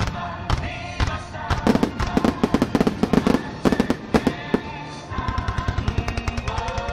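Fireworks going off in a fast volley of sharp bangs through the middle, then a quicker, even run of lighter cracks, with music playing under them.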